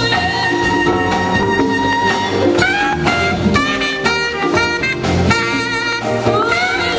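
Live jazz band playing, with a horn carrying the melody in held notes that slide up into pitch, over drum kit and percussion.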